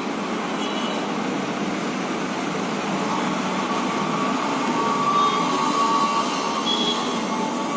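Steady mechanical background noise, with a faint whine coming in about halfway through and fading near the end.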